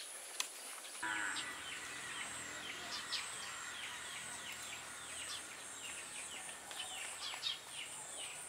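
Garden ambience: insects making a steady high-pitched drone while birds give many short, falling chirps.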